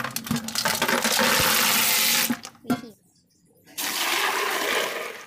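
Water pouring and splashing into a plastic bucket in two pours with a short pause between them. The first goes in as a bowl of snails is tipped in, and the second, poured from a basin, starts a little under four seconds in.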